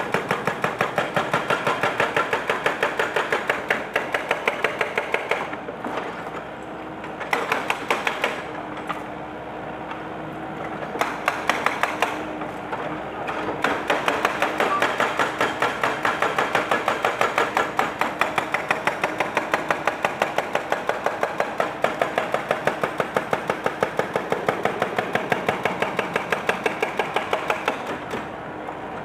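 Excavator-mounted hydraulic breaker hammering on the concrete of a monument in rapid, even blows, about six a second. It stops briefly two or three times while the excavator's engine keeps running underneath.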